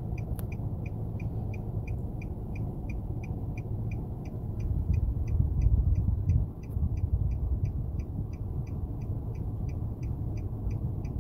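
A car's indicator ticking steadily inside the cabin, about three ticks a second, over a low rumble from the car that swells briefly in the middle.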